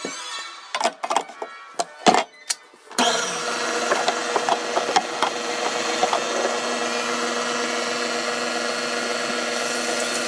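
A few knocks and scrapes of a spatula and handling at a stand mixer's steel bowl, then about three seconds in a KitchenAid Artisan stand mixer's motor starts and runs steadily, turning a dough hook through bread dough.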